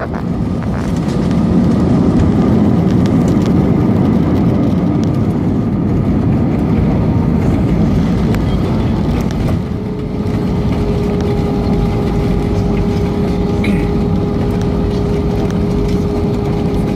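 Airbus A320 heard from inside the cabin while it rolls on the runway after landing: a loud, dense low rumble of engines and wheels. About ten seconds in the rumble eases slightly and a steady hum comes in.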